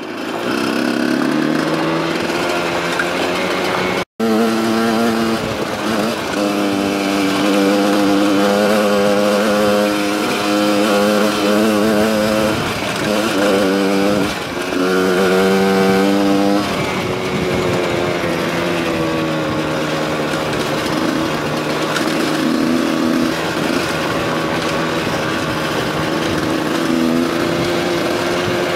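A 125cc enduro dirt bike's engine running while riding, its revs climbing, dropping briefly and climbing again, then settling to a steadier, lower pitch for the rest of the ride. The sound cuts out for an instant about four seconds in.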